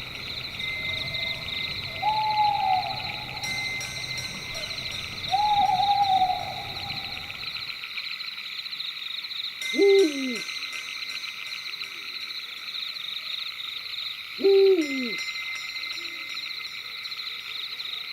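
Owl hooting four times: two drawn-out, slightly falling hoots, then two shorter, louder calls that drop in pitch, all over a steady high chorus of night insects.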